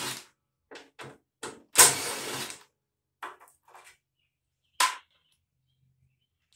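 Cordless drill/driver run in short bursts, backing out the fasteners that hold a riding mower's plastic bagger-mount parts, with the longest burst about two seconds in and a sharp click near five seconds.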